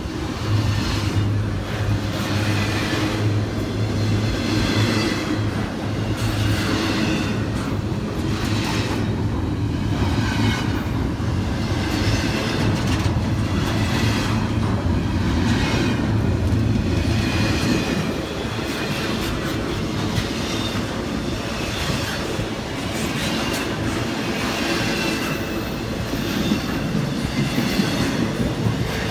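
Intermodal freight train rolling past, its wheels clattering over the rail joints in a repeating beat. A steady low hum fades out about eighteen seconds in.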